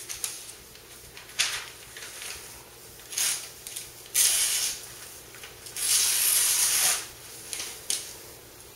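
A freshly sharpened butterfly knife slicing through a magazine page to test its edge. There is a short cut about a second in, then three longer cuts of about a second each.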